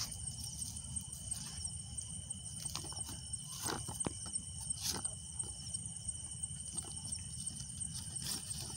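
Night insects chirring steadily in high, unbroken tones, with a few brief crinkles of a plastic bag being handled partway through.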